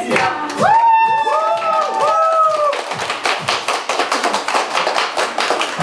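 A group clapping their hands, the claps growing dense and fast in the second half. In the first half several long calls rise and fall in pitch over the clapping.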